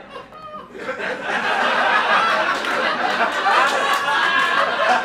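Theatre audience laughing, swelling about a second in and holding loud and steady.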